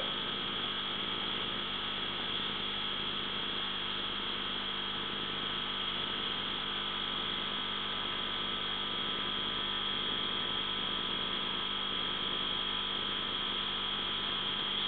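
Steady electrical hum with a high whine over it, unchanging throughout.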